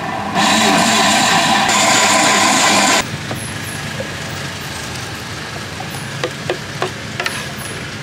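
Electric blender motor running at high speed while blending a fruit shake, then cutting off abruptly about three seconds in. Afterwards a few light clicks and taps of the plastic blender jar and cups as the shake is poured.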